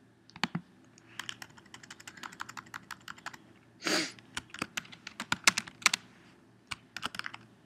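Computer keyboard typing: runs of light, quick key clicks. A short rush of noise comes about four seconds in.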